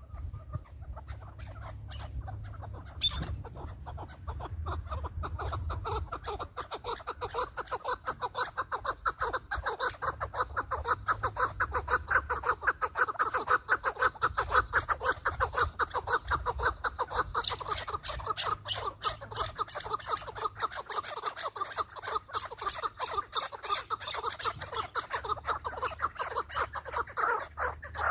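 Chukar partridge calling: a long, fast run of repeated clucking chuck notes that builds from about six seconds in and keeps going through the rest.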